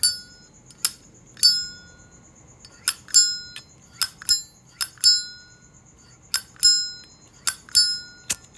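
Brass Zippo lighter (1995) lid flicked open and snapped shut over and over, about seven times. Many of the clicks ring briefly with a clear metallic ping.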